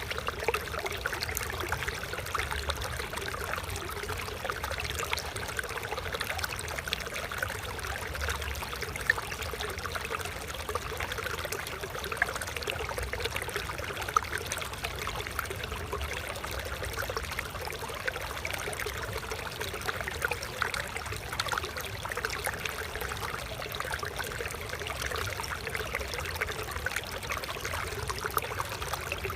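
Flowing water trickling steadily, with a low rumble underneath.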